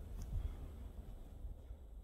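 Faint low rumble of wind buffeting the microphone, fading over the two seconds, with light handling noise as the camera pans.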